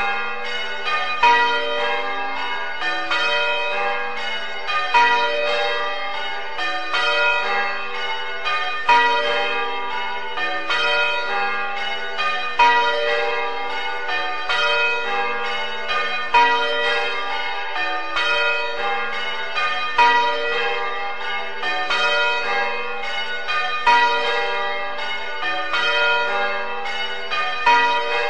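A ring of church bells rung in change ringing: the bells strike one after another in a steady, unbroken cycle, with a louder stroke about every four seconds.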